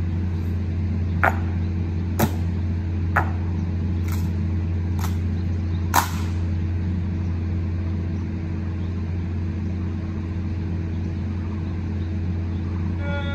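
Honor guards' boot heels striking the pavement in a slow ceremonial march, a sharp click about once a second, ending in a louder stamp as the squad halts about six seconds in. A steady low hum runs underneath.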